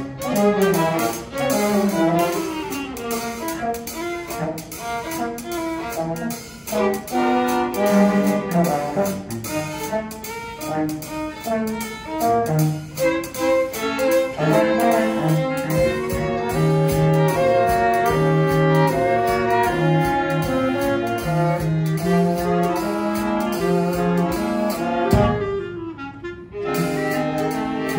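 Small chamber ensemble of violin, viola, clarinet, French horn and cello playing, with the bowed strings most prominent. Near the end the music breaks off briefly before going on.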